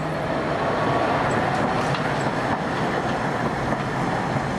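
Two-car Tatra T3 tram set passing close on street track, with a steady rolling noise of steel wheels on the rails.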